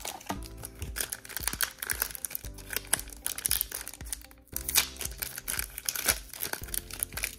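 Foil wrapper of a Pokémon trading card booster pack crinkling and tearing open in the hands, a dense run of sharp crackles. Background music plays underneath.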